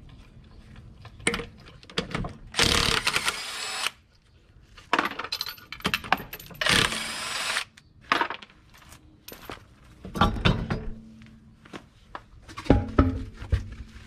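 Cordless impact wrench hammering a car's lug nuts loose in two main bursts of about a second each, a few seconds in and again near the middle. Between them, loose metal lug nuts clink and knock as they are dropped into a case.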